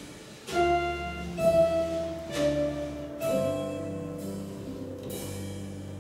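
Worship band of grand piano, acoustic guitar, electric guitar and drums playing an instrumental passage: a few chords struck in the first three seconds, then left to ring.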